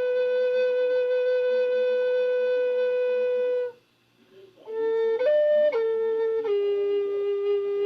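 Native American flute (siyotanka) playing a long held note that stops a little under four seconds in for a breath, then a short phrase of stepping notes that settles onto a lower held note.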